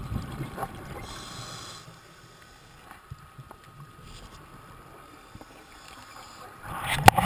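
Scuba diver's regulator breathing heard underwater, with a brief hiss about a second in and a loud, crackling rush of exhaled bubbles near the end.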